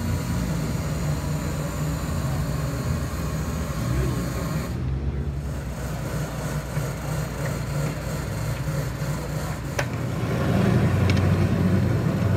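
A vehicle engine idling steadily close by, growing louder near the end, with a sharp metallic click about ten seconds in.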